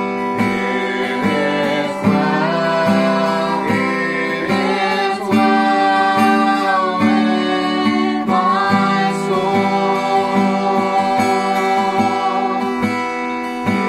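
A man and two girls singing a hymn to a strummed acoustic guitar.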